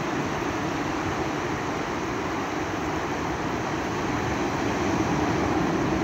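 Sea surf breaking and washing up a shallow sandy beach: a steady rushing that swells a little near the end.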